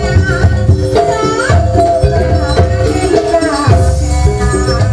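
Live Javanese jaranan ensemble music: drums and tuned percussion keep a steady repeating pattern under a wavering melodic line.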